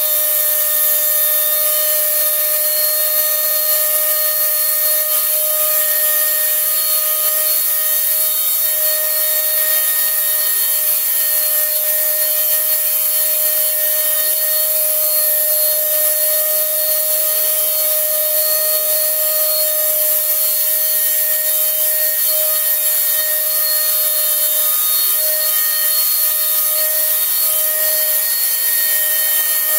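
Spray gun spraying wood stain: a steady, unbroken hiss with a constant whine over it.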